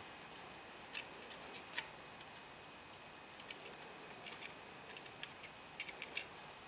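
Light, sharp clicks and taps of small repair tools and parts on an iPhone 4 being worked on by hand, scattered and sometimes in quick clusters of three or four, the sharpest about a second in, just before two seconds and about six seconds in.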